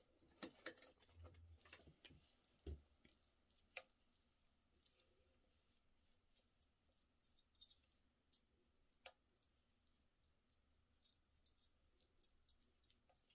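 Near silence broken by scattered faint clicks and soft taps, the handling of a blush palette and makeup brush; they come most often in the first few seconds and thin out after.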